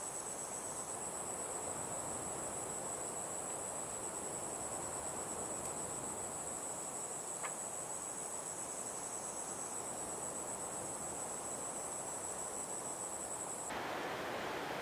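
A steady chorus of insects trilling on several high, unbroken tones, over a soft rushing wash. Near the end the insect song cuts off suddenly and a louder rushing noise takes over.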